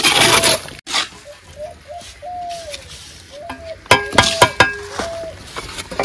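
Steel mason's trowel scraping through wet mortar on brickwork, then striking a brick with four quick metallic clinks that ring briefly about four seconds in. A bird calls repeatedly through it with short bending notes.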